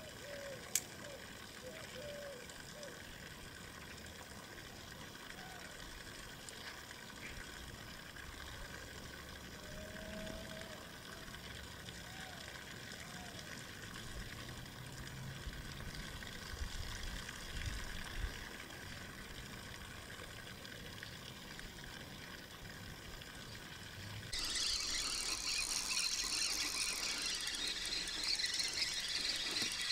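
Spinning reel being cranked to retrieve a long-cast lure: a steady whirring noise that starts suddenly about 24 seconds in. Before it, only a faint background with a few short chirps and light knocks.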